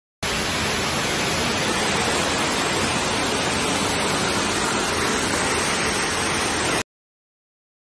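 HYAERO vacuum can rinser running, its centrifugal blower making a steady, loud rush of air. The sound begins and ends abruptly.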